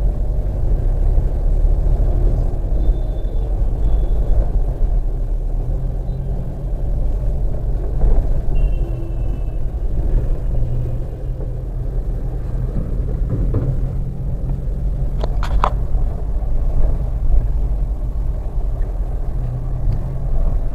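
Steady low rumble of engine and road noise inside a Mahindra Scorpio's cabin as it drives slowly through city traffic.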